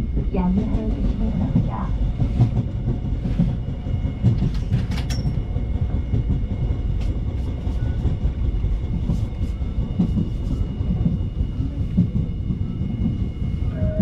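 Seoul Subway Line 1 train running, heard from inside a crowded car: a steady low rumble of the wheels on the track, with scattered clicks and a faint steady high whine.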